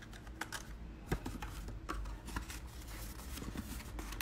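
Faint rustling and scattered soft clicks of a small printed paper gift bag being pressed and folded by hand.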